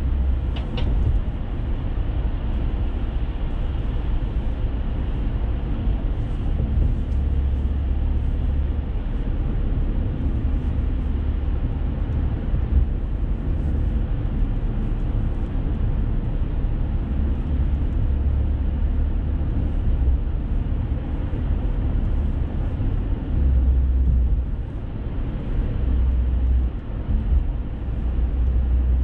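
Steady low rumble of a car's road and engine noise, heard from inside the cabin while cruising on an expressway.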